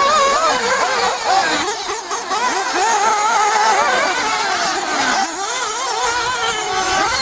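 Several 1/8-scale off-road RC race cars' motors whining together, each pitch rising and falling quickly as the cars throttle up and brake around the track.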